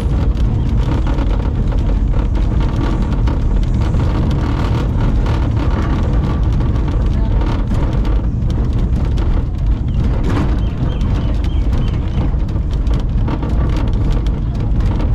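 1912 Boon & Co. California combination electric tram running along its track, heard from inside the driver's cab: a steady low rumble of wheels on rail with constant light rattling and clicking.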